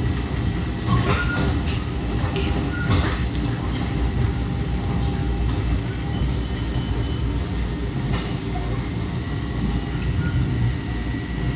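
Long Island Rail Road commuter train heard from inside a passenger car as it rolls along: a steady low rumble with brief high-pitched wheel squeals and a few sharp clunks as the wheels cross rail joints and switches.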